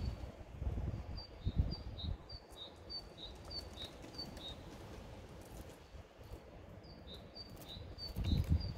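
Great tit singing its repeated two-note song, a high note then a slightly lower one over and over, in two runs with a pause in the middle. Low rumbling noise comes in at the start and again near the end.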